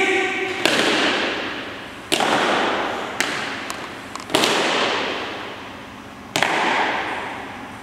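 Drill team's boots stamping in unison on a hard floor, four loud stamps roughly two seconds apart with two softer ones between, each ringing out in a long hall echo.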